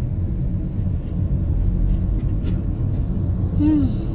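Steady low rumble of a car driving, heard from inside the cabin. Near the end there is a brief tone that falls in pitch.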